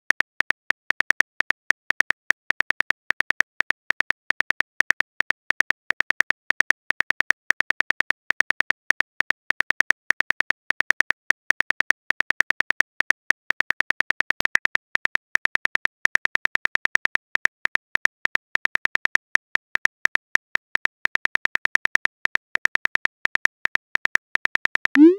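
Smartphone keyboard key-click sound effects ticking rapidly and irregularly, several clicks a second, as a message is typed out letter by letter. A short rising sound comes at the very end.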